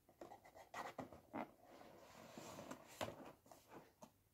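Faint taps and scrapes of a cardboard box being slid and lifted out of an advent calendar tray, a few soft clicks among near silence.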